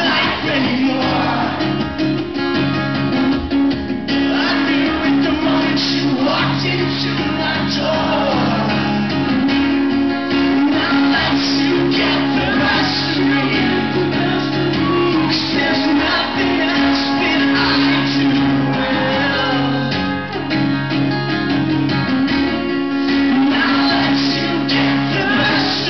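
Live acoustic rock song: two acoustic guitars strummed together, with a man singing over them.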